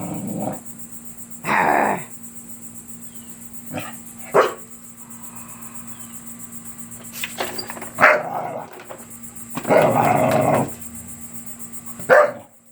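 A dog barking in short outbursts a few seconds apart, with a longer run of barking about ten seconds in, set off by a vacuum cleaner.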